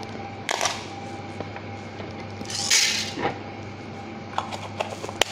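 Small containers and utensils being handled on a counter: a few light clicks and clinks, with a short rustling scrape about halfway through, over a steady low hum.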